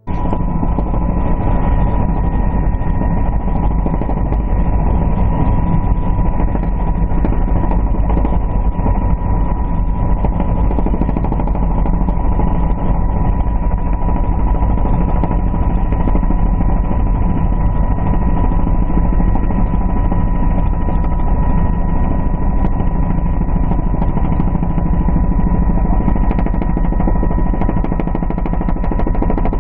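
Helicopter in flight heard from inside the cabin: the rapid, even chop of the rotor blades over a loud steady drone, with a steady high-pitched tone running through it.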